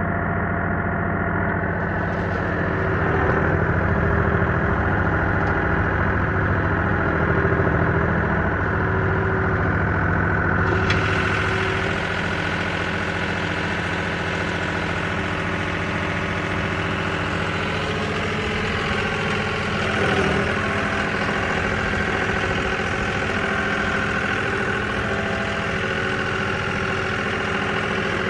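Tractor engine running steadily under load, a little louder for several seconds early on.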